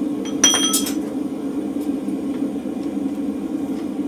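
Steady roar of a gas forge burner, with two quick ringing clinks of steel on the anvil about half a second in.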